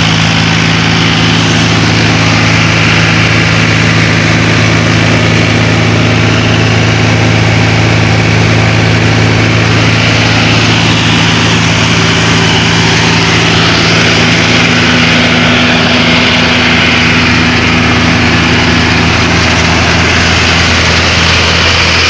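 Mahindra 265 DI Power Plus tractor's three-cylinder diesel engine running steadily, driving a thresher, with the thresher's steady mechanical rush mixed in.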